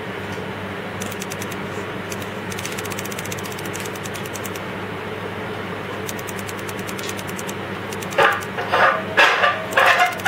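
Steady hum of a running room fan, with a few short spells of faint rapid ticking. About eight seconds in, louder irregular bursts begin.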